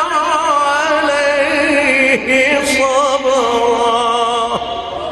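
A male reciter chanting the Quran in melodic tajweed style, drawing out long ornamented notes with wavering pitch, with short breaks between phrases about two seconds in and again near the end.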